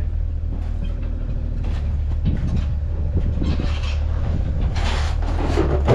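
Steady low mechanical rumble of a running vehicle or machine, with irregular rattling and knocking over it that grows busier near the end.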